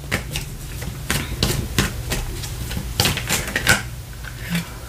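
A tarot deck being shuffled by hand: cards knocking and snapping together in a string of irregular sharp clicks.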